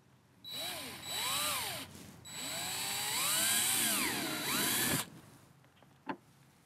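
Power drill boring a pilot hole in the kayak's hull, in two bursts with the motor's pitch rising and falling as it speeds up and slows down. It stops abruptly, and a short click follows.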